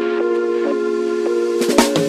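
Background music: sustained synth-like chords, with drum hits coming in near the end.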